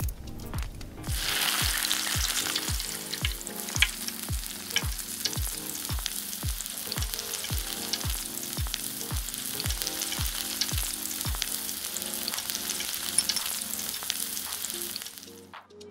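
A quail egg sizzling as it hits hot oil in a tiny metal pan about a second in, then frying steadily while a small fork stirs and scrambles it, with light clicks of the fork against the pan. The sizzle stops shortly before the end.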